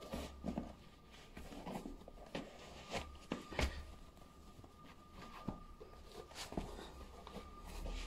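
Soft rustling of clothing and scattered light knocks and scuffs as sneakers are pulled on and laced, the loudest knock about three and a half seconds in.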